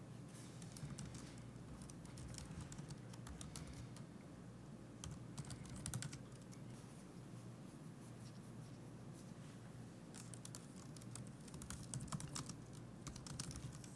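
Computer keyboard typing, faint, in short bursts of key clicks with pauses between: shell commands being typed.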